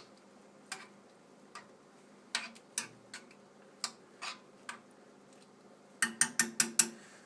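A utensil clinking against the bowl while bouillon is stirred into hot ramen broth: scattered light clicks, then a quick run of about six louder taps with a faint ring near the end.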